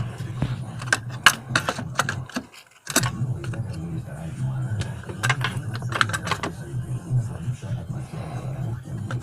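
Belt idler and tensioner pulleys of a Kia Sorento D4CB diesel being spun and handled by hand: a string of light clicks and rattles over a steady low hum, with a short break about a quarter of the way in. The pulleys are being checked for a binding bearing, the cause of a whistle on acceleration.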